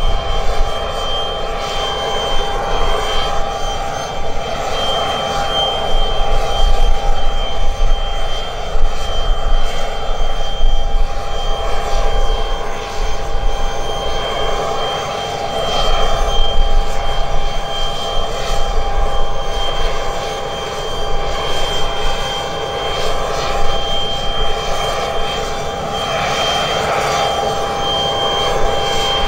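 Aircraft engines running steadily: a held whine of two steady tones over a low rumble, swelling and easing in loudness several times.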